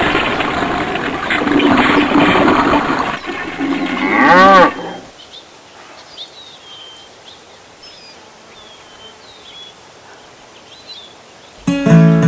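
A cartoon cow's loud, drawn-out moo, ending about four seconds in with a wavering rise and fall in pitch. Then faint bird chirps, and a strummed guitar chord comes in near the end.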